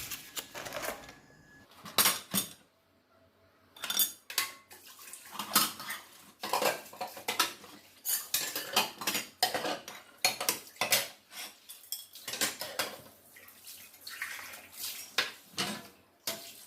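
Dishes and cutlery clinking and clattering as they are handled during washing-up, in a string of irregular knocks and clinks with a brief pause about three seconds in.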